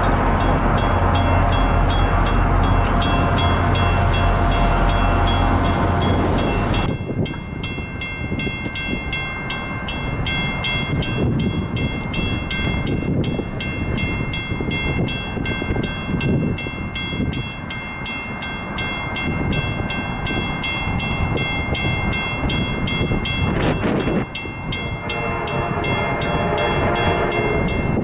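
A train passing close by. A diesel locomotive's engine runs loud for the first several seconds and cuts off abruptly. Then come the rumble and rapid even clicking of rail cars with steady high ringing tones. A train horn starts to sound near the end.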